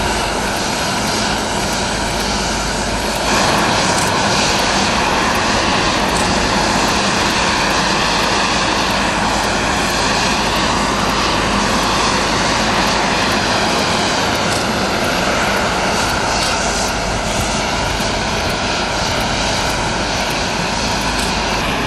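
Steady loud rush and whine of a parked jet airliner's engines running at idle, Air Force One (a Boeing 747-based VC-25A), growing louder about three seconds in.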